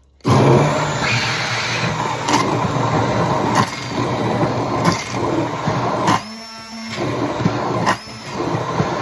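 Immersion blender switching on and running, puréeing roasted tomatoes and vegetables into sauce: a loud motor whine with churning and slurping from the blade in the thick mixture. A little past six seconds in the churning eases for a moment, leaving the plain whine of the motor.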